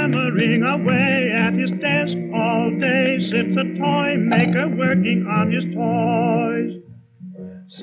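Cartoon soundtrack music with a singing voice wavering in vibrato over a steady accompaniment. The music drops away briefly near the end.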